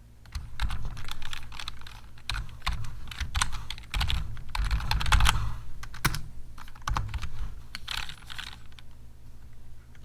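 Computer keyboard typing: quick, irregular runs of keystrokes with short pauses between them.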